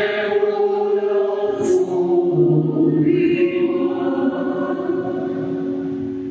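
Group of voices singing a slow worship song in long held notes, fading away near the end.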